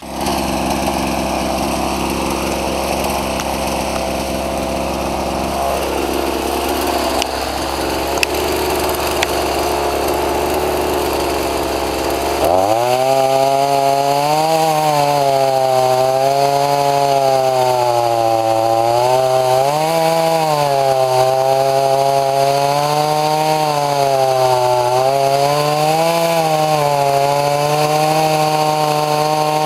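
Gasoline chainsaw idling, then about twelve seconds in throttled up to full revs and cutting into a large white pine, its engine pitch sagging and recovering again and again as the chain loads up in the cut.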